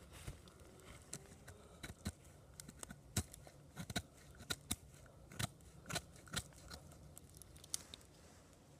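Dry twigs and tinder snapping and crackling in irregular sharp snaps, thickest in the middle few seconds.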